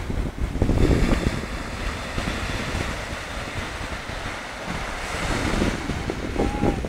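Surf breaking and washing in shallow water, with wind rumbling on the microphone, loudest about a second in.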